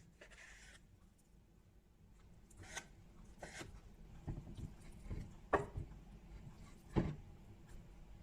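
A few separate knocks and clatters of kitchen items being handled. There is a brief hiss near the start, and the loudest knocks come about five and a half and seven seconds in.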